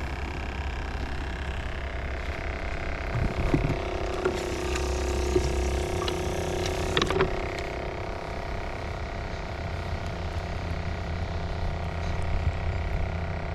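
A steady low mechanical hum with several held tones, like a motor or vehicle running, with a few light clicks and ticks over it, the sharpest about halfway through.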